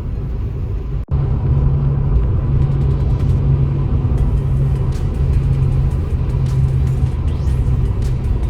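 Steady low engine and road rumble of a moving motor vehicle, heard from inside. There is a brief cut about a second in, after which the rumble carries on.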